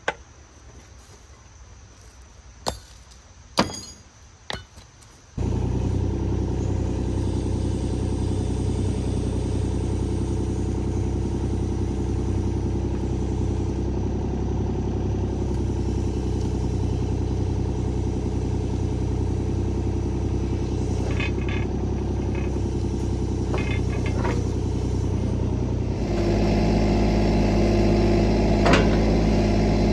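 A few sharp clicks, then the diesel engine of a Kubota U35-4 mini excavator comes in suddenly about five seconds in and runs steadily at idle. About 26 seconds in it is throttled up to a higher, louder speed.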